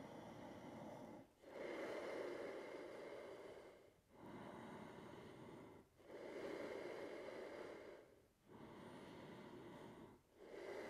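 Slow, audible human breathing: long breaths in and out, each about two seconds, following one another in an even rhythm with short gaps between them.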